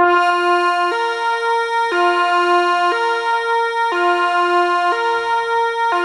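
Kockum Sonics TYFONIC Delta 4 fire siren starting abruptly and sounding the Swiss fire alarm: a loud alternating two-tone, C-sharp and G-sharp, switching between a lower and a higher tone about once a second.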